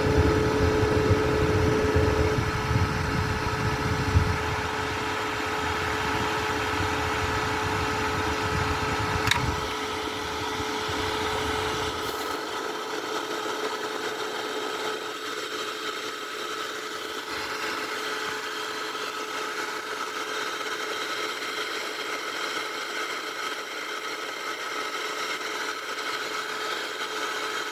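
Small portable air conditioner fan running on high speed: a steady motor hum and whir with fixed tones. A low rumble under it dies away about twelve seconds in.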